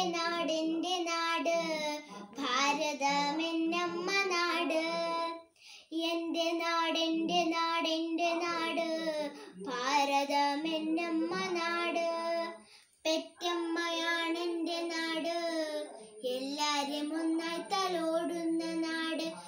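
A young girl singing solo, held notes in phrases with brief pauses between them.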